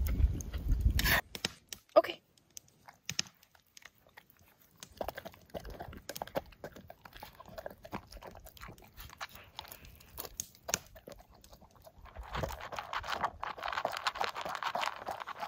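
A dog eating meat scraps from a metal camp plate: scattered crunches and clicks of chewing, growing denser and more continuous about twelve seconds in.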